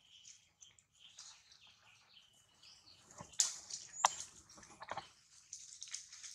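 Faint chirps of small birds with soft rustling, and a couple of sharp clicks about three and four seconds in.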